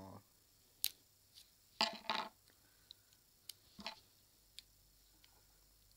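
Scattered light clicks and knocks of small objects being handled, with a louder cluster about two seconds in and another near four seconds.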